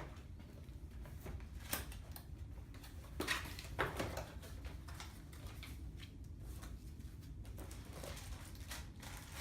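Handling noises of the alarm kit's parts and packaging: a few scattered light clicks and knocks over a low steady hum.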